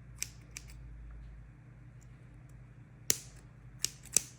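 Sharp snips of small cutters trimming the leftover metal tab ends on an iPhone battery's flex cable: two near the start, then three more near the end, the first of those the loudest.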